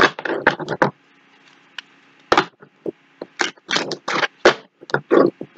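Tarot cards being shuffled by hand, as a string of irregular sharp snaps and slaps of the deck.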